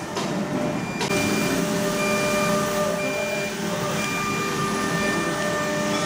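CNC door-lock machine running: a steady mechanical whir with several thin whining tones that start and stop, growing louder with a sharp onset about a second in.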